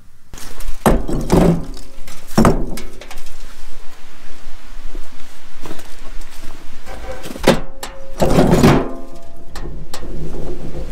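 Heavy chunks of broken concrete block and mortar thrown into a plastic wheelbarrow: several heavy thunks at irregular intervals, with rubble clattering between them.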